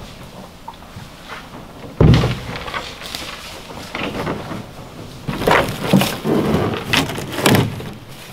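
A canoe being set down on a leaf-littered forest floor: a heavy thud about two seconds in as one end meets the ground, then crunching and scraping of the hull and footsteps in dry leaves.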